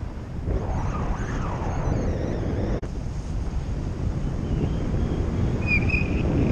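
Airflow buffeting the action camera's microphone during paraglider flight, a loud, steady low rushing. A brief dropout falls just under 3 seconds in, and faint wavering high tones come through near the end.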